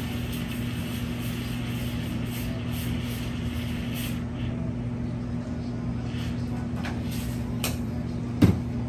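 Steady hum of espresso-bar machinery while a Cuban latte is made. A soft hiss stops about four seconds in, a few light clicks follow, and there is one sharp knock near the end.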